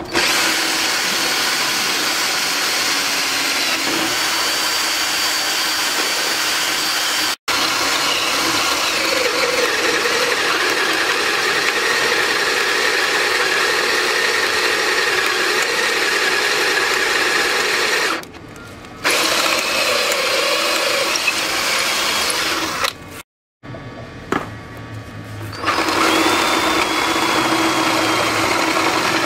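Electric drill boring out the rivet that holds the front lower ball joint to the suspension arm of an MGF/MG TF: a steady drilling whine. It stops briefly a few times, once about two-thirds of the way through and again for a couple of seconds shortly after, then resumes.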